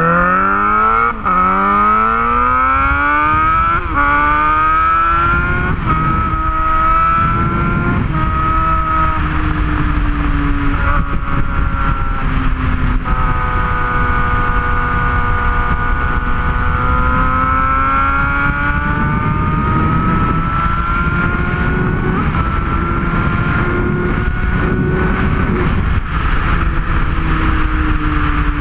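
Straight-piped Suzuki GSX-R750's inline-four exhaust under hard acceleration. The revs climb and drop back at quick upshifts about one and four seconds in, with more gear changes around the middle; after that the engine cruises with its note rising slowly and easing off near the end.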